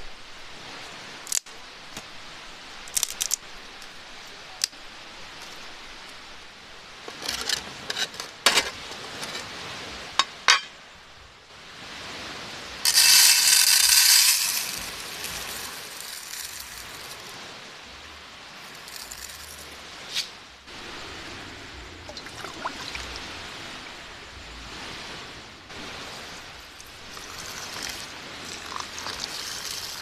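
Dry rice poured into an aluminium mess tin: a dense rattling rush of grains lasting about a second and a half, about halfway through, the loudest sound. Before it come scattered sharp clinks and knocks, and near the end water starts pouring into the tin.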